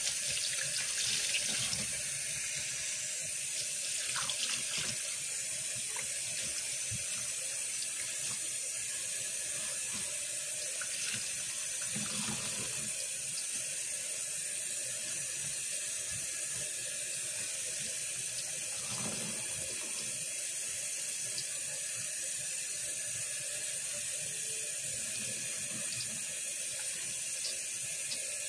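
Kitchen tap running a steady thin stream into a plastic basin of soapy water in a stainless steel sink. Now and then come the wet squelch and splash of a soapy sponge being squeezed and worked in the suds by hand.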